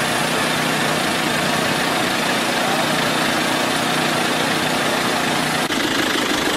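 Vehicle engine idling with a steady hum under a constant wash of outdoor noise; the sound changes abruptly a little before the end.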